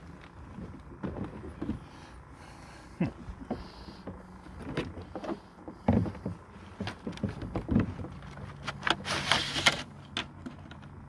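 Scattered knocks and thumps of a plastic fish measuring board and a freshly caught snook being handled on a kayak, with a brief hissing rustle about nine seconds in.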